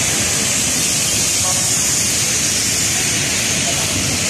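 Heavy rain falling steadily, with the hiss of motorcycles and cars passing on the wet road.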